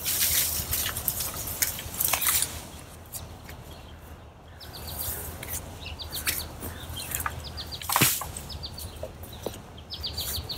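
A quick run of short, high, falling bird chirps through the second half, over rustling and handling noises. There is a loud burst of rustling at the start and a sharp knock about eight seconds in.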